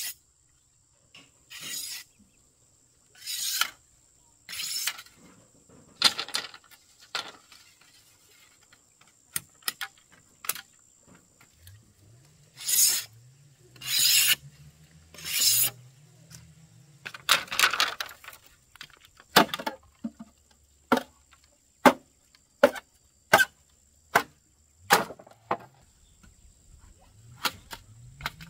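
Repeated rasping, scraping strokes, about one every second and a half and louder in the middle, followed by a run of short sharp knocks about once a second.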